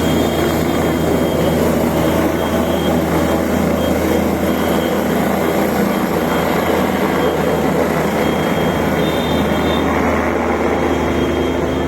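Helicopter engine and rotor running steadily and loudly.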